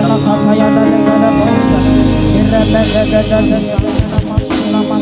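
Church praise band playing between sung lines: sustained chords, with a deep bass line coming in a couple of seconds in and a quick run of low drum hits near the end.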